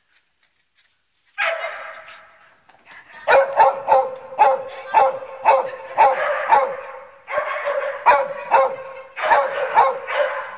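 A dog barking repeatedly. It starts about a second and a half in and settles into about two barks a second, with a short break about seven seconds in.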